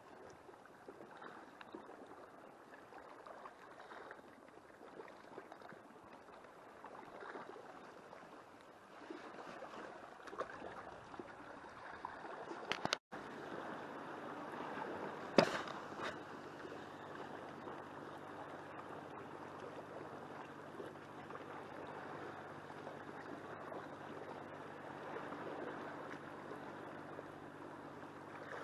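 Calm sea washing and lapping against the rocks, a steady low rush of water. About halfway through comes one sharp click, and after it a faint steady hum runs under the water sound.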